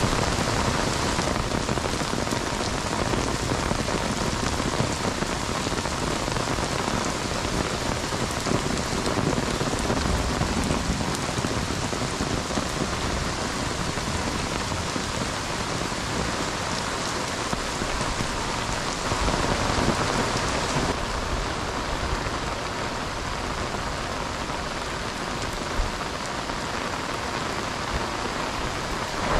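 Heavy downpour of rain pouring steadily onto pavement and a flooded road: a dense, unbroken hiss that shifts slightly in tone a couple of times.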